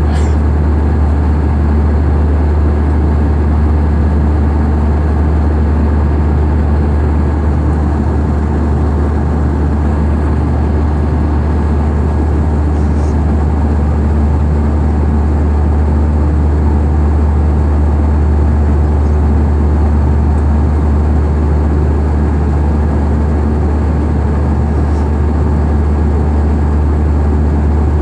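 Loud, steady engine drone with an even rushing noise, the sound of a vehicle in motion heard from inside it; it holds unchanged throughout.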